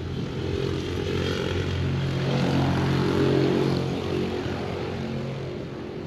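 An engine passing close by, growing louder to a peak about three seconds in and then fading away.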